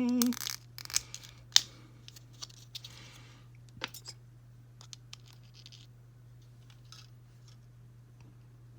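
Small plastic miniature parts being handled: a few sharp clicks and taps with light rustling, the loudest click about a second and a half in, over a steady low hum.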